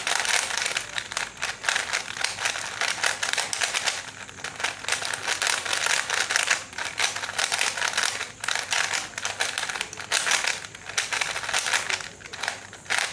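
A 3x3 Rubik's cube being scrambled by hand: rapid, continuous clicking and clacking of its plastic layers turning, in quick flurries with a few brief lulls.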